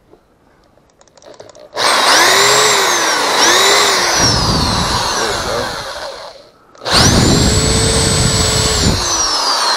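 Cordless drill motor run in bursts. It starts about two seconds in with two quick spin-ups and slow-downs and runs on to about six and a half seconds. After a brief stop it runs steadily for about two seconds, then winds down near the end.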